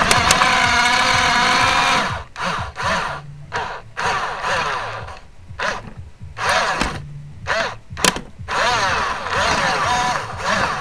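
Small electric drive motors and gearbox of a Dickie-Simba radio-controlled toy snow groomer whining. The whine is steady for about two seconds, then comes in short stop-start bursts that rise and fall in pitch as the tracked toy is driven in spurts, and runs more steadily again near the end.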